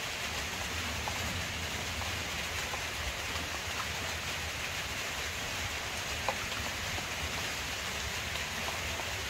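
Steady outdoor background hiss, even and unbroken, with a low flutter underneath and a few faint clicks, one about six seconds in.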